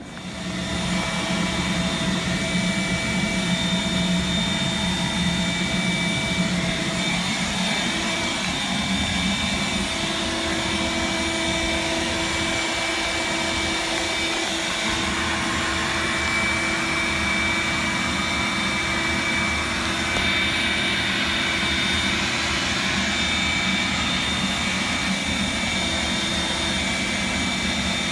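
A loud, steady rush of air with a steady motor whine, coming up to speed about a second in and running without a break, typical of an electric vacuum or blower used to clean refrigeration condensers.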